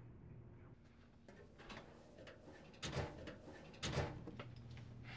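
Light clicks and knocks of things being handled at an office desk, with two louder thumps about a second apart midway.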